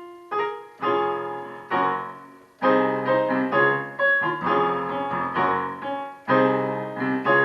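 Piano chords played in D-flat: slash chords struck one after another and left to ring, moving through A-flat over C to D-flat over D-flat.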